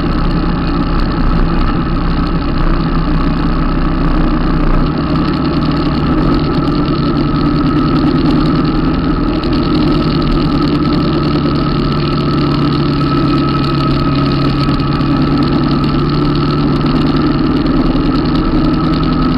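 Harley-Davidson V-twin motorcycle engines cruising at a steady highway speed: a constant engine drone mixed with road and wind noise, without revving or gear changes.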